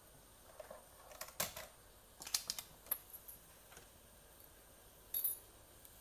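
A few light clicks and taps from objects being handled on a countertop, with a short bright clink about five seconds in.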